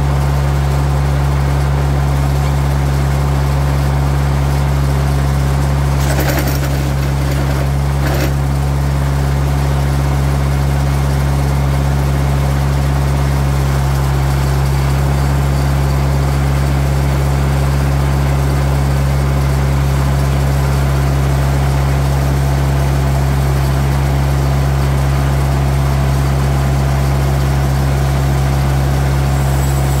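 TimberKing 2020 bandsaw sawmill's engine idling steadily, a constant low hum. Two brief faint scratchy sounds come about six and eight seconds in.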